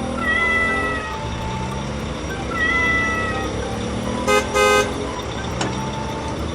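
Cartoon vehicle horn beeping twice in quick succession about four and a half seconds in, over light background music. Two high, drawn-out tones that dip slightly come earlier, one near the start and one about two and a half seconds in.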